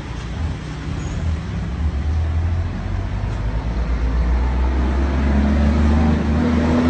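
Road traffic with a heavy vehicle's engine rumbling, growing steadily louder, its pitch rising over the last couple of seconds as it speeds up.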